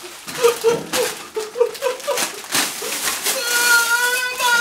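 Plastic candy wrapping crinkling and tearing as a bag is ripped open, under a man's short high-pitched squeals that turn into one drawn-out, held whine in the last second or so.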